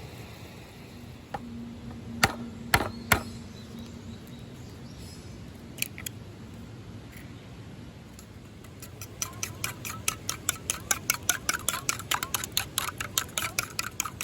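Three sharp knocks, two more a few seconds later, then from about nine seconds in a fast even run of clicking taps, about four a second.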